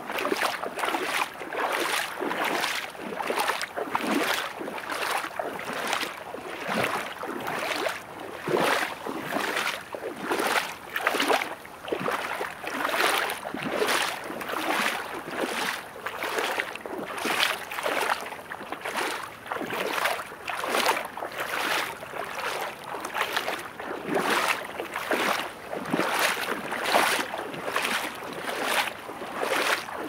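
Footsteps wading through seawater, each stride a splash and slosh, about two a second, with waves washing behind them.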